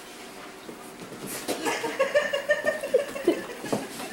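A person laughing in rapid, high-pitched pulses, starting about a second and a half in and fading near the end.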